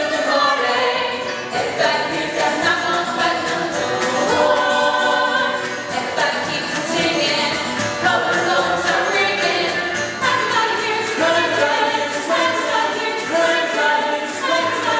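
Mixed chorus of men's and women's voices singing a country-style show tune together.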